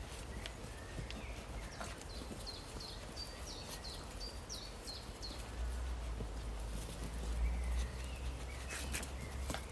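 Polish hound puppies scuffling and tugging at a hide lure on a rope: scattered light knocks and scrabbling of paws. A run of short, high chirps comes about two to five seconds in, and a low rumble sets in around halfway.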